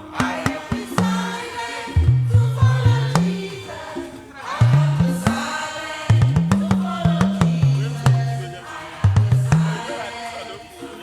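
A live band and choir playing a song: a bass line stepping between low notes under sharp drum hits, with voices singing above. The bass drops out and the music gets quieter about ten seconds in.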